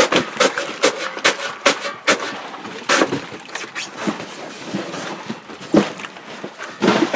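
Plastic fish crates loaded with milkfish knocking and clattering as they are handled and weighed, with many sharp, irregular knocks.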